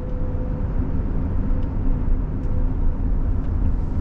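Road and tyre noise heard from inside a moving car's cabin: a steady low rumble.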